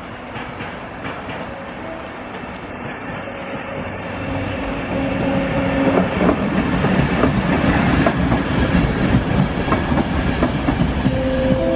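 Siemens ER 20 (class 223) diesel-electric locomotive hauling a train of passenger coaches, growing louder as it draws near and passes. Its coaches' wheels then clatter over the rail joints and points.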